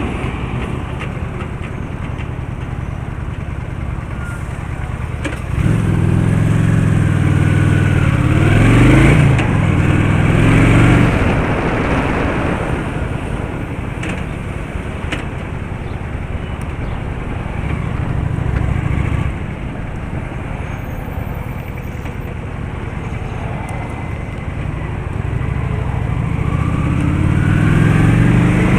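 Car driving on a road: steady engine and road noise. The engine note swells several times, rising in pitch about eight to eleven seconds in and again near the end as it accelerates.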